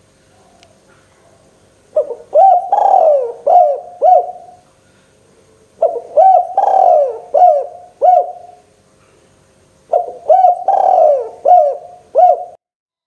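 Spotted dove (tekukur) cooing loudly: three repeated song phrases, each a run of about five low coos, about four seconds apart.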